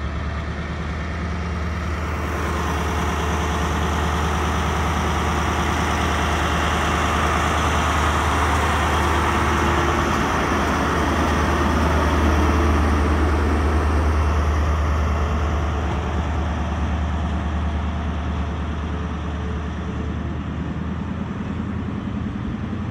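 High Speed Train (InterCity 125) departing: the carriages roll past, then the rear Class 43 diesel power car's engine drones by close, loudest about halfway through, and fades as the train pulls away.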